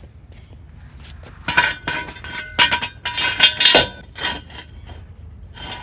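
Steel ratcheting jack stand being set in place and its ratchet column pulled up: a run of metallic clanks and clicks, starting about a second and a half in.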